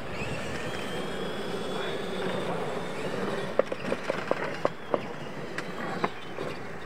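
RC monster truck driving on dirt, a steady running noise with a faint high motor whine that rises slightly. From about three and a half to six seconds in come a series of sharp, irregular clicks and knocks.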